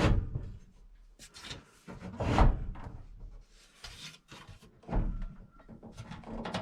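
Knocks, thumps and scraping from a microwave and its wooden trim being shifted and pushed into a cabinet opening, with the loudest thumps at the start, about two and a half seconds in and about five seconds in.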